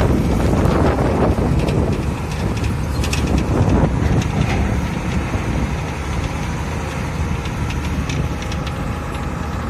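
Truck engine running as the truck drives over a rough dirt mountain road, heard from inside the cab, with scattered rattles and knocks.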